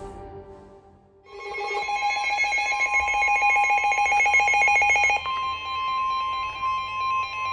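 Intro music fading out, then an Emergency Alert System attention signal: a steady two-pitch electronic alert tone with a fast flutter for about four seconds, switching to a single steady tone near 1 kHz. These tones announce the start of a weather warning broadcast.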